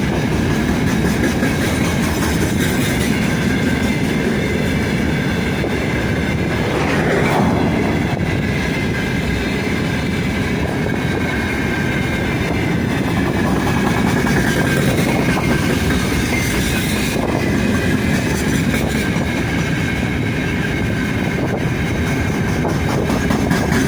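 Freight train rolling past at speed: a steady rumble of the wagons with the clickety-clack of wheels over the rail joints and a thin, high ringing from wheels and rails.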